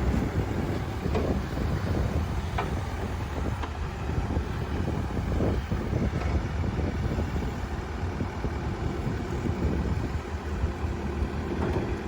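Terex TLB840 backhoe loader's diesel engine running steadily while the backhoe is worked, with a few light knocks in the first few seconds.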